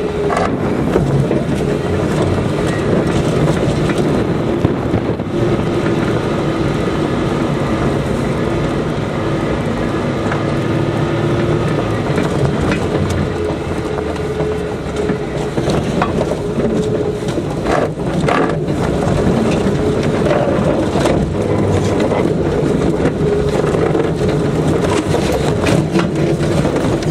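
Off-road 4x4's engine running under load, its pitch rising and falling as it is driven, with the rattle and rumble of the vehicle over rough ground.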